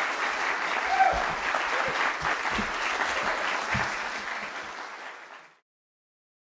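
Audience applauding, the applause fading and then cutting off to silence about five and a half seconds in.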